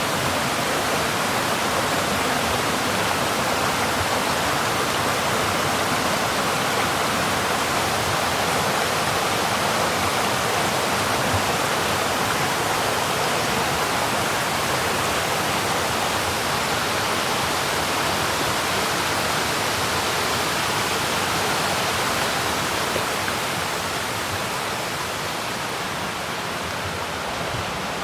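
Mountain stream water flowing and rushing steadily, a continuous even rush that eases slightly in level near the end.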